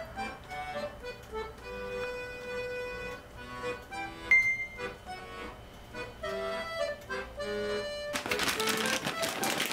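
Accordion music playing a melody of held notes. Near the end a crackly rustling noise joins in.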